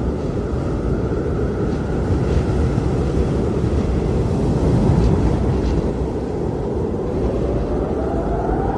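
Blizzard wind blowing hard: a dense, steady low rumble with a faint howling whistle that wavers and rises in pitch near the end.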